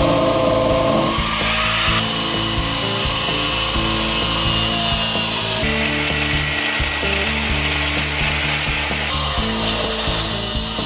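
Electric angle grinder cutting steel on a hay mower's cutter bar, a steady high whine, with background music under it.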